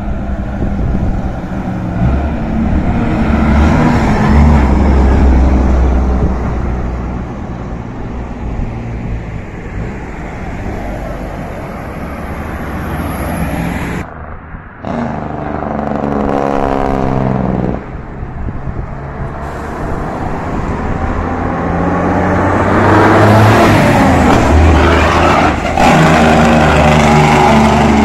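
Road traffic passing close by, engines of cars and trucks running. Around the middle one engine revs up, its pitch rising. Near the end the noise swells loudly as a vehicle passes.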